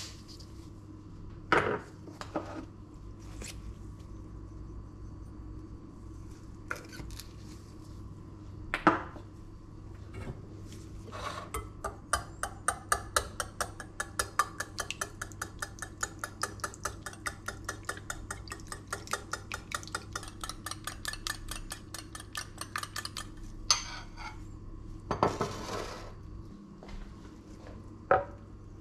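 Wire whisk beating eggs in a ceramic bowl, the wires clicking against the bowl about four to five times a second for some ten seconds, with a few single utensil knocks before it. Near the end comes a short scrape and a knock as a wooden cutting board is set on the counter, all over a steady low hum.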